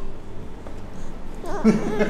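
A pause in a baby's crying. About one and a half seconds in, soft wavering whimpering and voice sounds start up again.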